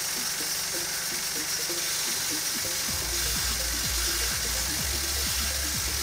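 Background electronic music with a steady beat, over the steady hiss of a pressure-washer jet spraying water onto an air conditioner's blower wheel.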